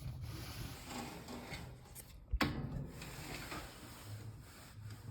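Unpowered metal box fan being handled and turned over, with rustling and a sharp knock about two and a half seconds in.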